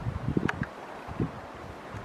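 Wind buffeting the microphone: a steady hiss with irregular low thumps, and one short sharp click about half a second in.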